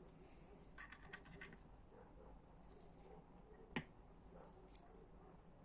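Faint light clicks and taps of small metal engine parts being handled, likely a piston pin being rocked in its needle bearing to check for play, with one sharper click about four seconds in.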